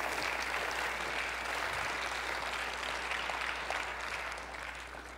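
Congregation applauding, steady at first and then dying away near the end.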